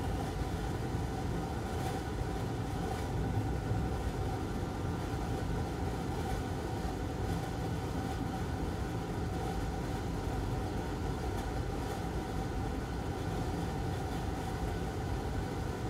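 Steady machine whir with a faint steady whine, from fan-driven electronics-repair bench equipment running.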